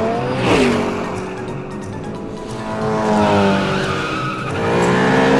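Cartoon race-car sound effects: engines revving, rising and falling in pitch, with a tyre skid about half a second in, over background music.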